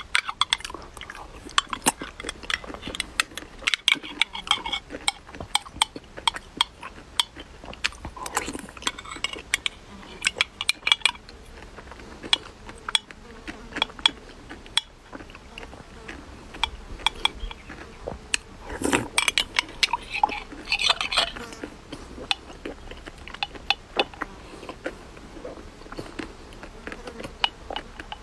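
A metal spoon clinking and scraping against a glass jar as soft fermented tofu is scooped out, mixed with close-up chewing and lip-smacking. Short sharp clicks come throughout.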